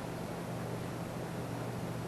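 Steady low hum with an even background hiss; no distinct event.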